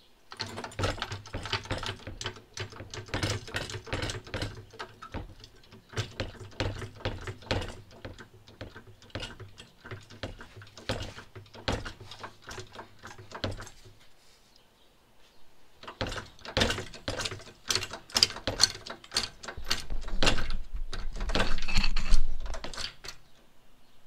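Hydraulic floor jack being pumped by its handle, clicking and clunking with each stroke as it lifts the car. The pumping stops about 14 seconds in and starts again a couple of seconds later, loudest near the end.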